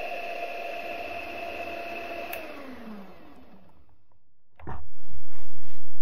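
Electric hand mixer beating thin batter in a glass bowl, its motor running steadily, then switched off about halfway through and winding down in pitch. Near the end, a sudden knock.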